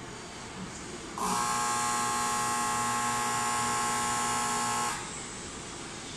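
Station platform departure buzzer giving one steady, buzzing electronic tone for nearly four seconds, starting about a second in and cutting off sharply: the signal that the train is about to leave.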